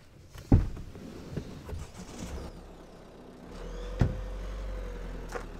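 A car door shuts with a heavy thump about half a second in, followed by a few softer knocks. A low steady hum comes in about three and a half seconds in, with another sharp knock at about four seconds.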